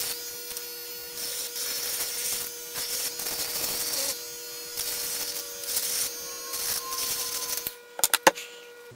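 Small handheld rotary sanding tool, Dremel-like, running with a steady motor whine while its bit rasps in repeated passes against a plastic cube piece, stripping spray paint off it. The tool stops near the end, followed by a few sharp clicks.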